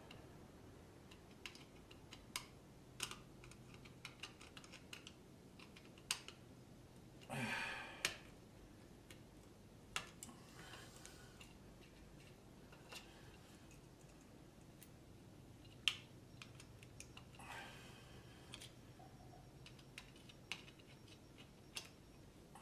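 Scattered small clicks and taps from handling a plastic garage door opener wall control and its wiring, with two brief scraping rustles, one about a third of the way in and one past the middle. Otherwise quiet.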